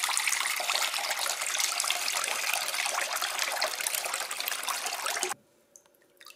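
Water poured from a dehumidifier's white plastic water tank into a glass bowl: a steady splashing pour that stops suddenly about five seconds in, followed by a few faint drips.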